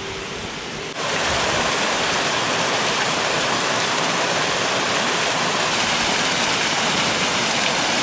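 Water of a small forest waterfall, about two and a half to three metres high, pouring over rock into a stream pool: a steady rushing. About a second in it jumps louder and stays at that level.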